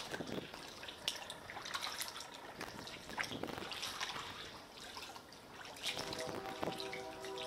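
Water dripping, trickling and splashing lightly in irregular spatters, as water laps at a kayak under a pier. About six seconds in, a steady sound of several held pitches comes in underneath.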